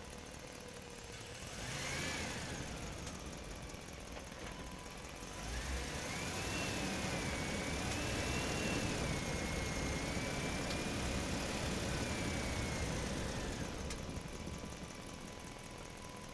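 An engine-like motor whine: a brief rise and fall about two seconds in, then a longer wavering whine with a low rumble from about five seconds until near the end.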